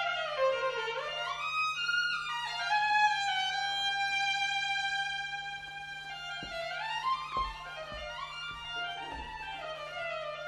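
Solo violin playing unaccompanied: sweeping slides down and up in pitch, a long held note, then quicker rising and falling phrases. A few soft low thumps sound under the playing in the second half.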